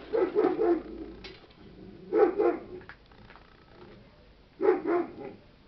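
A dog barking: three short bouts of quick barks, about two seconds apart.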